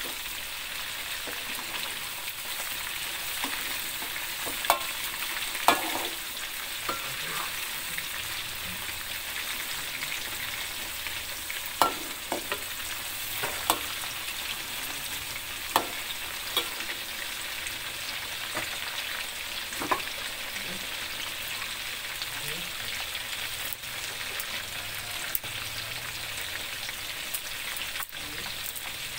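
Chicken pieces deep-frying in hot oil in a metal wok, a steady sizzling hiss. A few sharp clicks stand out during the first two-thirds, as a metal spatula turns the pieces in the wok.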